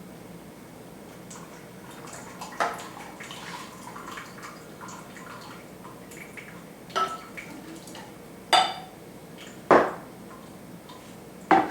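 Freshly juiced orange, ginger and turmeric juice dripping and trickling through a strainer. Five sharp clinks of glass and metal kitchenware come through it, the louder ones near the end.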